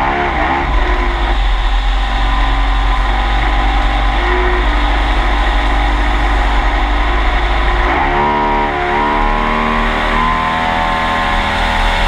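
Mercury Racing Pro Max 300X two-stroke V6 outboard running at low speed, heard close up from its cowling. The revs settle near the start, then dip and pick back up about eight seconds in.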